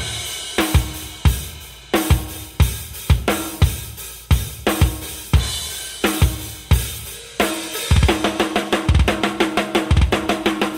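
Rock drum kit playing alone: loud, spaced hits of kick drum and snare with cymbals, which speed up into a fast run of strokes after about seven and a half seconds.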